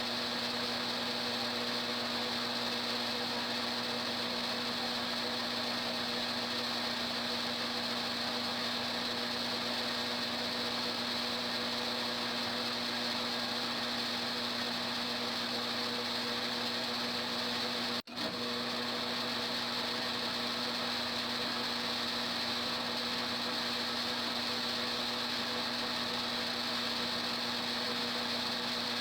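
Homemade lathe's electric motor running with a steady hum, dropping out for an instant about two-thirds of the way through.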